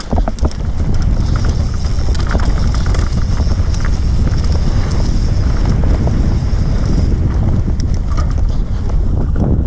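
Wind buffeting a camera microphone, a loud, steady low rumble, as a rider sets off and descends an enduro trail at race speed. Scattered clicks and rattles from the bike and its tyres on the rough ground sound through it.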